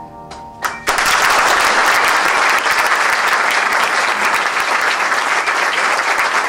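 The piano's last chords ring for under a second, then a small audience breaks into applause about a second in, clapping steadily.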